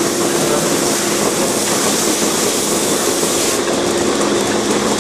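Milking parlour machinery running: the steady hiss of the milking units' vacuum over a steady hum. The high part of the hiss drops a little after three and a half seconds in.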